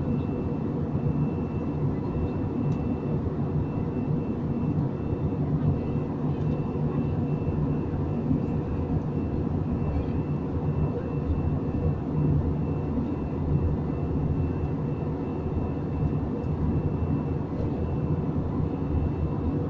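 Airliner cabin noise in flight: a steady, deep drone of engines and airflow, with a thin, steady high whine over it.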